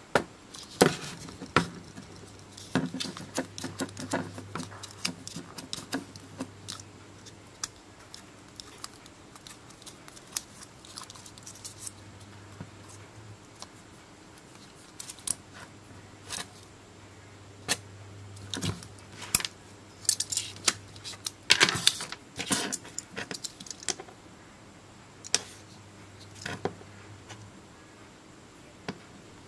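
Irregular clicks, crinkles and taps as hands handle swollen lithium-polymer pouch cells, their foil wrapping and thin wire leads. A faint low hum comes and goes underneath.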